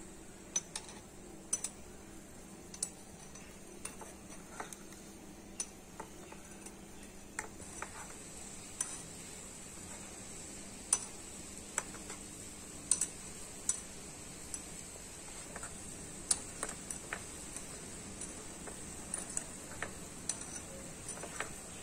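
Small bread gulab jamun balls deep-frying in a miniature metal pot, with a steady faint sizzle of the oil. A tiny metal slotted spoon stirring and turning them clinks against the pot in irregular light taps, one every second or so.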